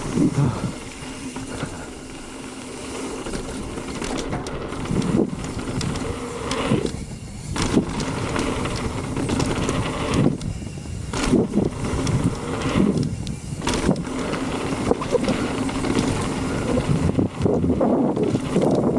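Mountain bike riding down a dirt jump trail: tyre and bike rattle noise with wind buffeting the microphone, rising and falling unevenly.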